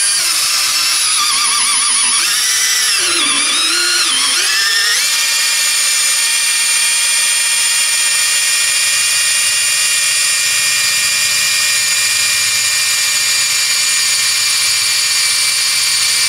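Cordless drill running continuously, boring a long bit through the back of a sink cabinet into the house wall. The motor pitch wavers up and down for the first few seconds as the trigger speed varies, then holds steady.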